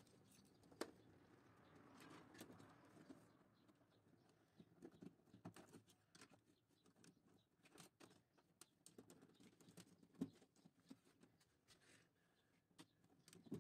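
Faint rustling and scattered light clicks of insulated wires being handled and pushed through slotted plastic wiring duct, with a couple of sharper ticks, one about a second in and one near the end.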